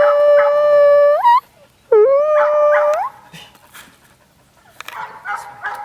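A dog howling twice: a long, steady howl that rises in pitch as it ends just over a second in, then a shorter one that swoops up from low and rises again at its end.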